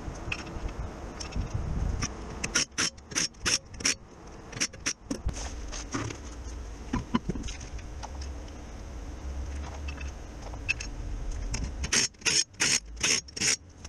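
Pneumatic impact wrench fired in short bursts on wheel bolts: a run of about five quick bursts a few seconds in, a few more just after, and another run of about five near the end, with clicks and scrapes of the wheel being handled in between.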